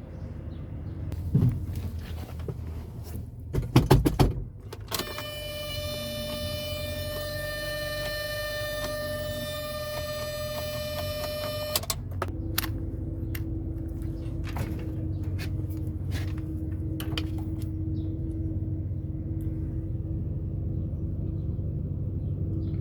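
Isuzu NPR truck cab: a few clunks and a jingle of keys, then a steady electronic warning buzz for about seven seconds that cuts off suddenly, followed by a fainter steady hum over a low background rumble.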